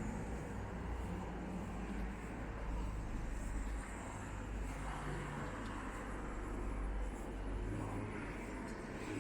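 Town street ambience: the steady low rumble and hiss of road traffic, with no single event standing out.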